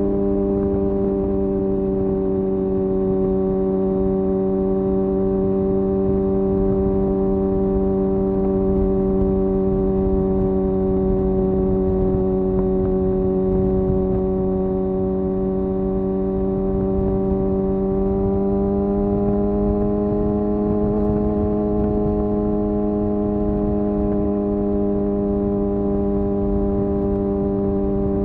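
Kawasaki ZX-6R's 600cc inline-four engine running at a steady speed under a light, even throttle. The pitch rises a little about two-thirds of the way through and then levels off.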